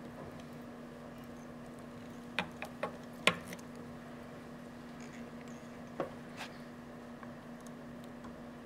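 A few small sharp clicks and taps from hands working hackle pliers at a fly-tying vise, a quick cluster about two and a half to three and a half seconds in and two more around six seconds, over a steady low hum.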